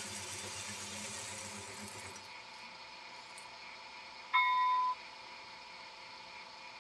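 Small electric drive motor of an HO-scale model rotary coal dumper running as it rolls a hopper car back upright, stopping about two seconds in at the end of its travel. A little past halfway a short, steady, high electronic beep sounds for about half a second.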